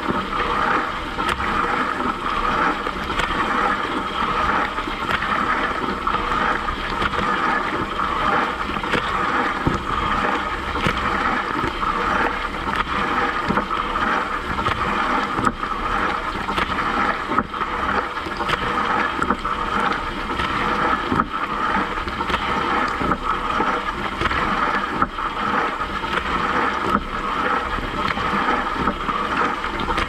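Water jets from a Siemens dishwasher's spray arms splashing over the dishes and racks mid-cycle. It is a steady rushing hiss with pattering drops.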